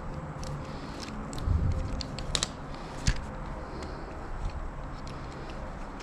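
Scattered small clicks and taps of hand tools and small metal parts on a manual transmission case, the sharpest click about two and a half seconds in, over a low background hum.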